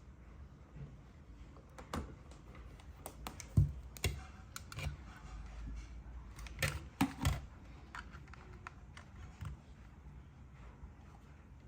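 Lecoo speaker giving off a faint, steady low buzz in Bluetooth mode, with irregular sharp clicks and taps over it, the loudest about three and a half seconds and seven seconds in.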